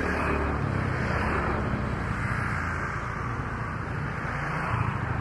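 Jet engines of a Boeing 737 business jet running steadily as it taxis and turns on the runway: an even, continuous jet noise.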